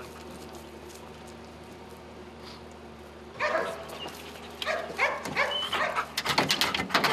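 Police narcotics detection dog barking and whining in short repeated calls from about three seconds in, while working a vehicle search. Near the end the calls come with a quick run of sharp scrapes and clicks.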